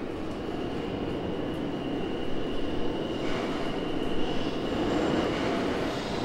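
Subway train running through the station below, a steady rumble with a thin high whine over it, growing gradually louder.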